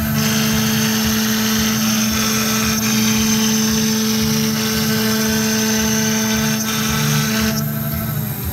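VFD-driven spindle of a MultiCam CNC router running with a steady whine while its bit engraves letters into a wooden board. A brighter, higher cutting noise rides over the whine and stops about seven and a half seconds in, while the spindle keeps running.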